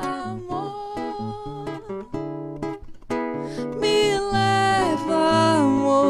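Nylon-string classical guitar fingerpicked, with a woman singing a wordless line over it that grows louder about four seconds in.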